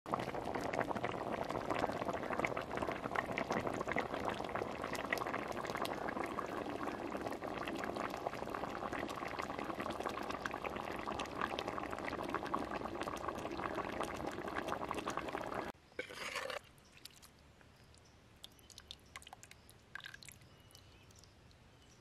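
Thick fish curry bubbling at a boil in a clay pot, a dense crackle of small popping bubbles. It cuts off about sixteen seconds in, leaving only faint scattered clicks.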